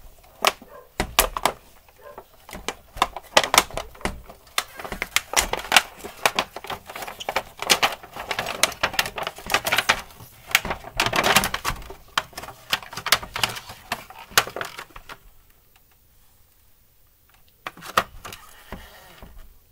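Clear plastic cover sheet being worked loose and pulled out from inside an opened inverter: a long run of sharp clicks and crackles. It falls quiet about fifteen seconds in, then a few more clicks follow.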